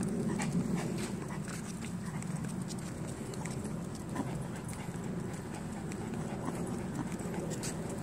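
Dogs walking on a leash along a concrete sidewalk: many small ticks of claws and steps on the concrete over a steady low rustle.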